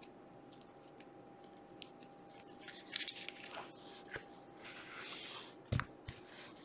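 Trading cards and clear plastic card holders being handled: soft rustling and sliding of cards against plastic, a sharp click a little after four seconds in, and a louder knock of a hard plastic card case near the end.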